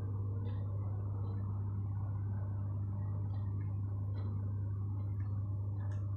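Steady low electrical hum, with faint small clicks now and then.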